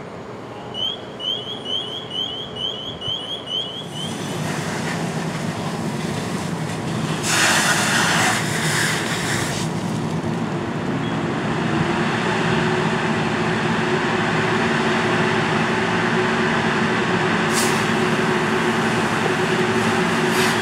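Fire hose nozzle spraying water with a steady hiss that starts about four seconds in and is briefly loudest near the middle, over the steady running of a fire engine's pump engine. Early on, a rapid string of about ten high rising chirps lasts about three seconds.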